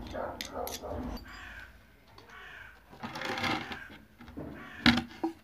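Thin wooden boards being handled, with a single sharp knock about five seconds in, the loudest sound. Harsh bird calls come in between.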